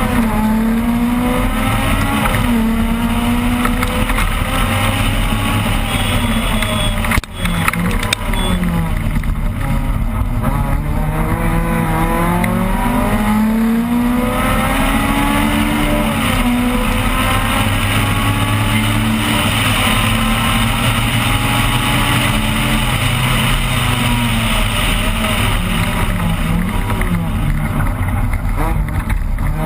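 Opel Kadett rally car's engine heard from inside the cabin at full attack, revving up through the gears with repeated drops in pitch at each shift and lift, and a single sharp knock about seven seconds in.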